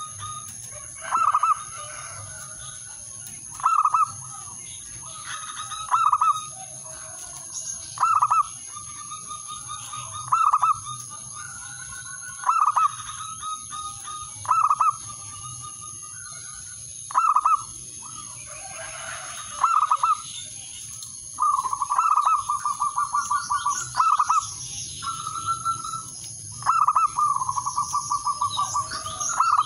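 Male zebra dove's territorial cooing song, calling out to rivals. Short loud coos come about every two seconds, and in the second half some run on into longer strings of rapid staccato notes. A steady high-pitched whine runs underneath.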